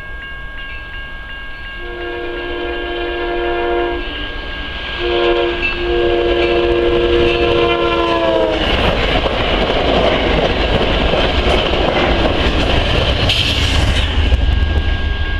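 Amtrak Cascades Talgo passenger train sounding its horn on approach: a long blast, a brief one and a final long blast that drops in pitch as the lead cab car passes. After that comes the rumble and clatter of the trainset rolling by.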